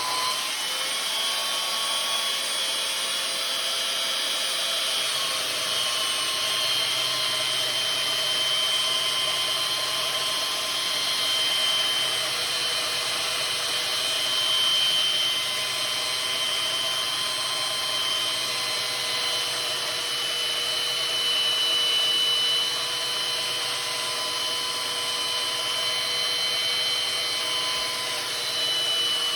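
A power grinding tool running steadily with a whining motor tone that wavers slightly, grinding the steel edge of a splitting maul to take out a nick and raise a burr.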